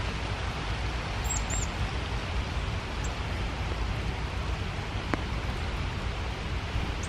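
Steady rain falling through spruce forest, an even hiss, with two short high bird chirps about a second in.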